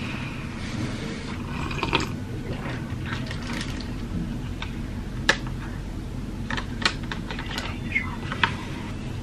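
Scattered small clicks and knocks of cutlery and a cup being handled, the sharpest about halfway through and a few more near the end, over a low steady hum.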